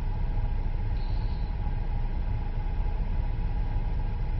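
Steady low rumble of a car heard from inside its cabin, with a faint steady hum above it.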